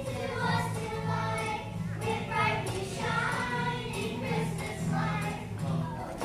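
A choir of children's voices singing a Christmas song over instrumental accompaniment.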